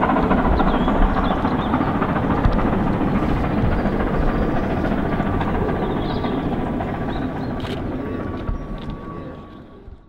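BR Britannia class two-cylinder 4-6-2 steam locomotive 70013 working a passenger train: a loud, dense rumble and rush of exhaust and running gear that slowly drops and fades out in the last second.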